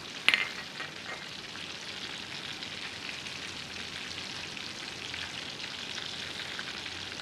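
Oil sizzling steadily as breaded chicken breasts shallow-fry in a pan, with one brief sharp sound just after the start.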